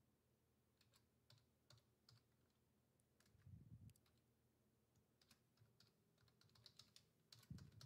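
Faint computer keyboard typing: scattered single keystrokes, then a quicker run of keys near the end. A couple of soft low thuds, about three and a half seconds in and again near the end.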